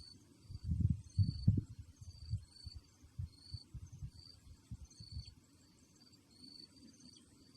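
Wind buffeting the microphone in irregular low rumbles, loudest a little over a second in and dying away after about five seconds. Behind it, an insect chirps steadily in short high notes, about two a second.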